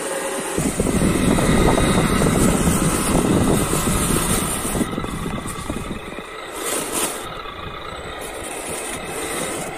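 A 1/8-scale RC model of an old Ford truck drives through deep snow, its motor and gears running while the plow blade pushes the snow aside. The rush of sound swells about half a second in and is loudest for the first few seconds, then eases.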